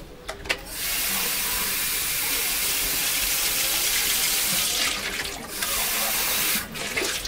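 Kitchen tap running into a stainless steel sink, water splashing as it is used. It comes on about a second in, dips briefly around two-thirds of the way through, and is turned off shortly before the end.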